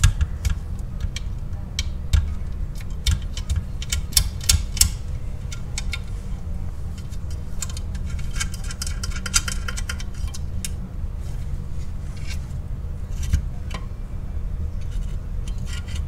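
Light metallic clicks, clinks and knocks from hands working on a steel pedal-box assembly as a switch is repositioned in its bracket, with a short scraping patch about eight seconds in. A steady low hum runs underneath.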